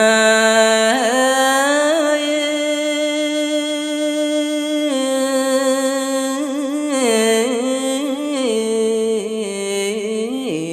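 Khmer smot chanting by a Buddhist monk: one unaccompanied voice holds long, ornamented notes that waver and step down in pitch several times.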